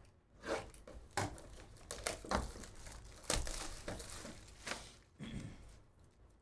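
Plastic shrink wrap being torn and crumpled off a sealed box of trading cards: irregular crinkling and crackling that dies away near the end.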